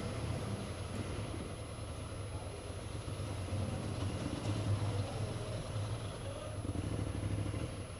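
Motorcycle engine running steadily at low revs as the bike rolls slowly.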